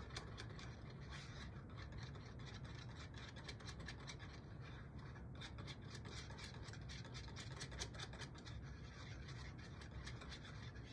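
Small wire whisk scraping and ticking rapidly against a small bowl, whisking peanut sauce until smooth.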